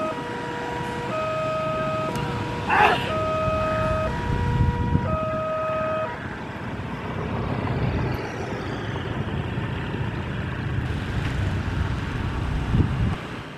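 Railway level-crossing warning alarm sounding a two-tone signal that alternates about once a second, stopping about six seconds in as the crossing clears. A short horn toot sounds about three seconds in, and motorcycle engines run as riders cross.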